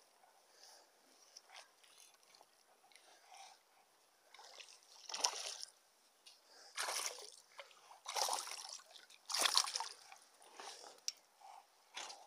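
A small hooked bass thrashing at the water's surface, a series of short splashes, the loudest about five, seven, eight and nine and a half seconds in.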